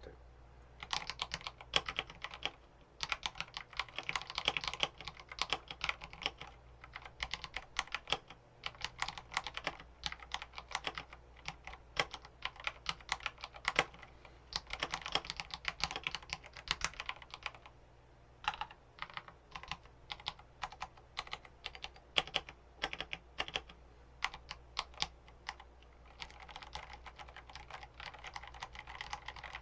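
Typing on a TES68 mechanical keyboard with frankenswitches (Purple Panda tactile stems in Gateron Brown housings) under Akko Wave keycaps: fast, irregular keystrokes in runs with brief pauses, a sound the builder calls almost clicky.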